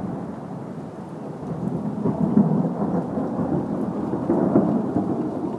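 Thunder rumbling low and long, swelling about two seconds in and again near the end, over steady rain.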